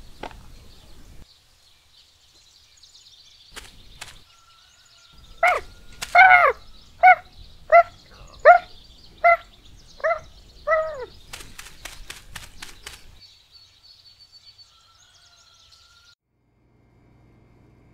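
Outdoor ambience with faint birdsong, broken by eight short, loud animal calls about three-quarters of a second apart. A quick run of sharp taps follows them.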